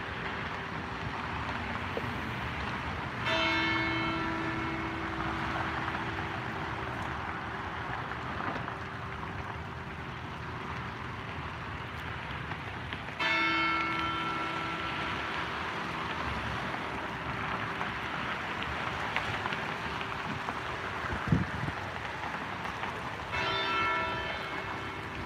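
A single large church bell tolling slowly: three strokes about ten seconds apart, each ringing out and fading before the next. It is a funeral toll. Steady outdoor background hiss runs underneath.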